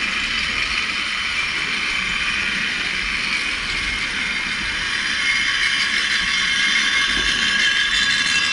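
Lynton & Lynmouth Cliff Railway funicular car running down its track, a steady high mechanical whine of wheels and cable with several tones, getting a little louder about five seconds in.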